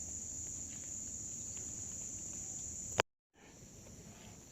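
A steady, high-pitched insect chorus. About three seconds in there is a sharp click and the sound drops out completely for a moment, then returns quieter.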